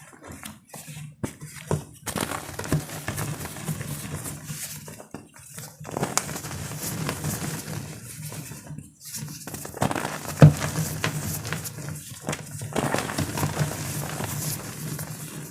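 Gym chalk blocks being crushed by hand, crumbling with crackly crunches in bouts, with short pauses. One sharp snap about ten and a half seconds in.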